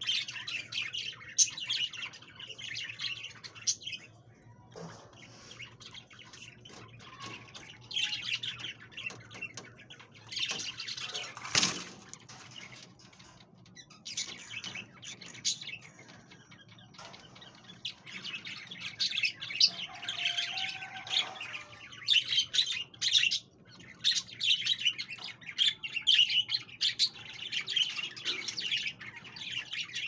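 Indian ringneck parakeets calling in repeated bursts of shrill chatter and squawks, with quieter gaps between them. There is one sharp click about twelve seconds in.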